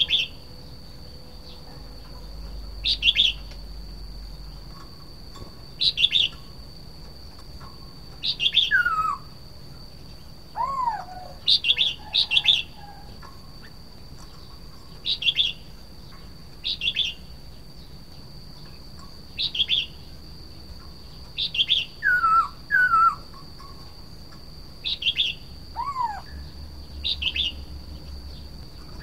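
Red-whiskered bulbul singing short, bright chirping phrases, repeated about every two to three seconds, with a few lower falling whistles among them.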